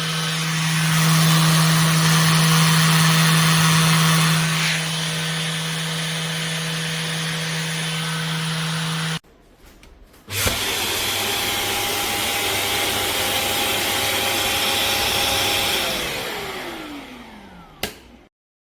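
Shark Detect Clean & Empty cordless vacuum's motor running with a steady hum, louder for a few seconds near the start, then cutting off. After a short pause the motor starts again, runs steadily and spins down with a falling whine, ending with a click.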